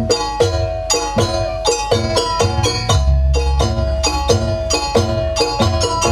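Live Banyuwangi jaranan gamelan music: kendang drums and small bronze kettle gongs struck in quick, even strokes, about four to five a second, each note ringing. A deep low stroke sounds about three seconds in.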